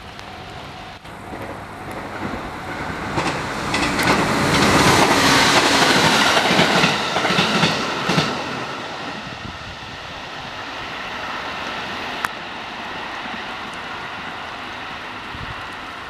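A JR 701 series electric train passing close by. The noise builds as it approaches and the wheels click over the rail joints as the cars go past. It then fades to a low rumble as the train draws away.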